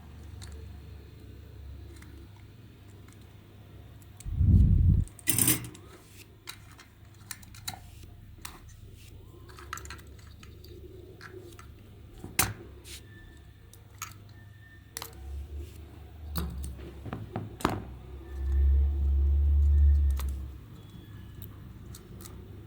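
Scattered small clicks and taps of hands working on small plastic and metal parts, with low thumps about four and a half seconds in and a low rumble near the end.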